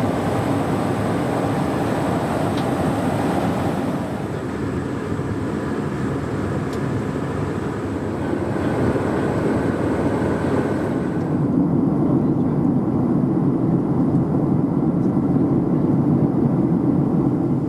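Boeing 737 cabin noise in flight: the steady rush of engines and airflow. Its tone shifts about 4 and 11 seconds in, and the last part is deeper and duller.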